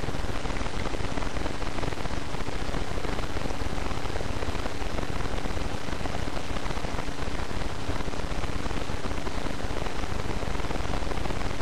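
Steady, even hiss with a faint hum underneath.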